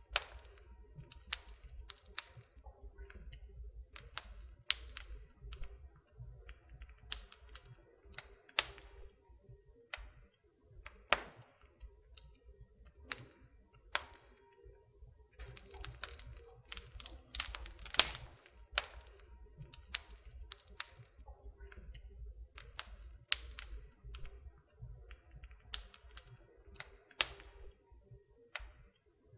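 Campfire crackling: irregular sharp pops and snaps of burning wood over a low rumble.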